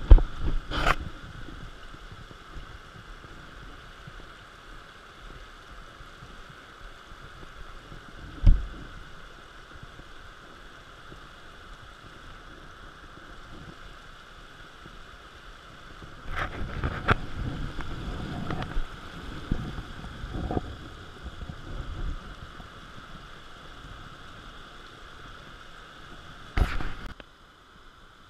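Steady rush of flowing river water, with sharp knocks at the start, about eight seconds in and near the end, and a spell of rustling and clattering about two-thirds of the way through from handling right by the camera.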